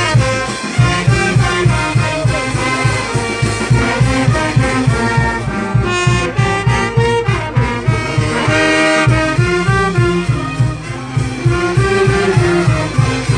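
Live brass band playing a tune, brass horns carrying the melody over a steady low drum beat.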